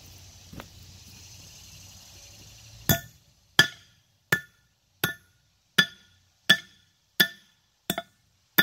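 Hammer blows knocking splined steel wheel studs out of a cast-iron brake hub: about nine sharp metallic strikes, roughly one every 0.7 seconds, each with a brief ring, starting about three seconds in.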